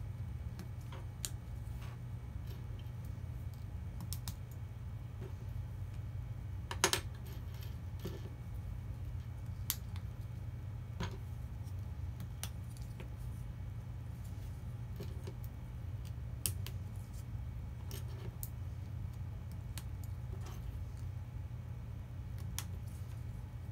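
Plastic Lego Technic beams and pins clicking and rattling as they are handled and pressed together, in scattered clicks with one louder clack about seven seconds in. A steady low hum runs underneath.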